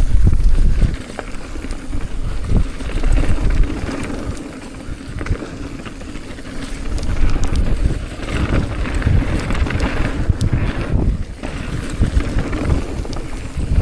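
Mountain bike descending a dirt downhill trail: wind buffeting the microphone over the rumble of tyres on dirt, with scattered sharp knocks and rattles from the bike over bumps. Louder at the start and again past the middle.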